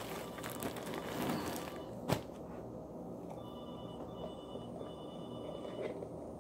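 Plastic bread bag crinkling and rustling for about two seconds, then one sharp click, followed by quieter small scraping sounds as a knife works in a jar of peanut butter.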